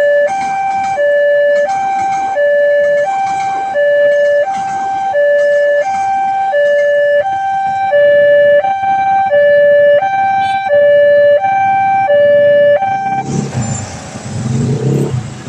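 Railway level-crossing warning siren sounding a loud two-tone hi-lo alternation, the pitch switching about every 0.7 seconds. It cuts off abruptly about thirteen seconds in, and motor vehicle engines and traffic noise take over.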